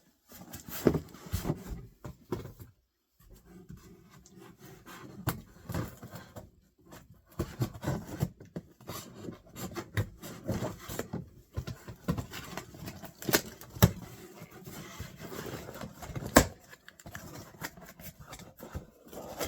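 Packaging and bottles being handled and unpacked: rubbing and scraping with scattered knocks, one sharper knock near the end.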